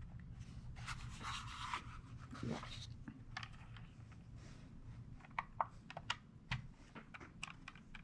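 Faint handling of a plastic VEX V5 robotics controller: rubbing and scraping of the case against hands and the towel, then a few light clicks as its buttons are pressed.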